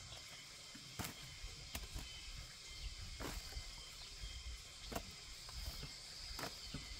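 About five sharp snaps or clicks at irregular intervals, over a low rumbling outdoor noise and a faint steady high hiss.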